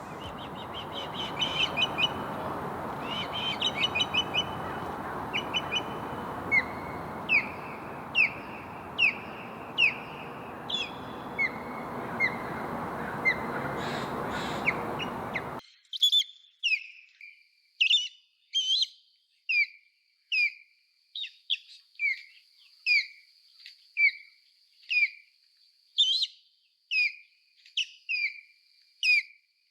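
Osprey calling: a long series of short, piercing, whistled chirps that slide down in pitch, about one a second. A steady rush of background noise under the first half stops abruptly about halfway through, while the calls go on.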